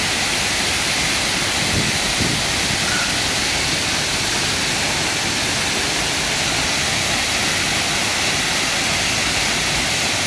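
Salgadeira waterfall: water pouring down and splashing, a loud, steady rushing noise.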